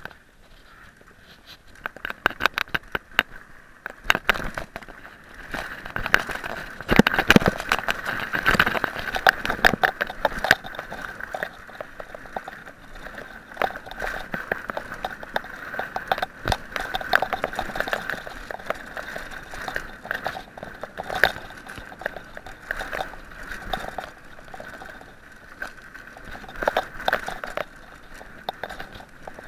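Mountain bike rattling and clattering over a rough dirt trail, tyres crunching on dry ground, with many irregular sharp knocks from bumps, busiest and loudest a quarter to a third of the way through.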